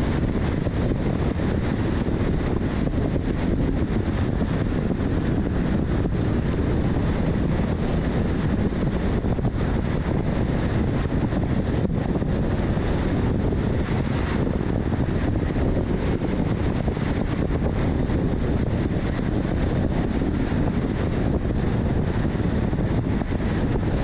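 Steady, deep rushing road and wind noise of a car driving, with wind on the microphone; it holds even throughout.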